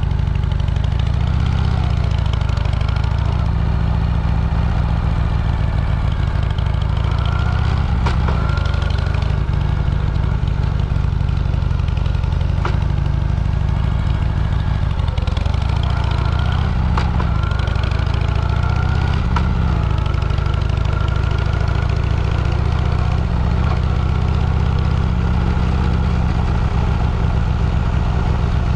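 A motor vehicle's engine running steadily while under way, its pitch rising and falling, over a heavy low rumble, with a few sharp clicks.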